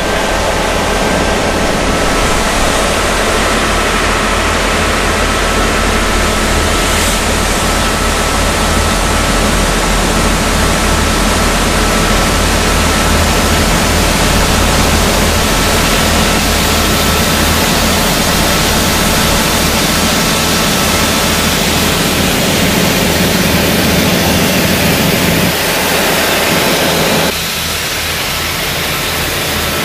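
Aqua Track high-pressure water rail-cleaning vehicle at work: a steady loud rushing hiss of water jets blasting the railheads at about 20,000 psi, over the deep running of its engines and pressure-pump units, with a faint thin steady whine. Near the end the sound drops suddenly to a quieter, thinner rush.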